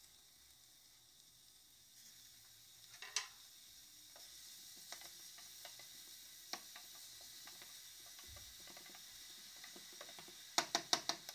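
Chopped onions sizzling faintly in olive oil in a small stainless saucepan, stirred with a wooden spoon, with a few knocks of the spoon against the pan. A quick run of sharp clicks comes near the end.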